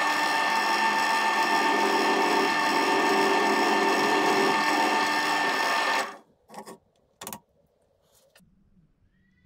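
Benchtop drill press running at a steady speed with its bit on a small steel hex and axle shaft clamped in the vise. It is switched off about six seconds in, followed by two short knocks.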